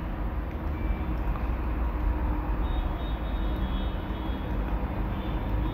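Steady low rumbling background noise, even in level throughout, with no speech.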